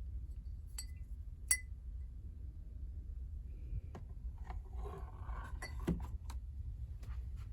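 Light clinks and taps of small objects being handled: a sharp clink about a second and a half in, then a cluster of quick taps and clicks in the second half, over a steady low hum.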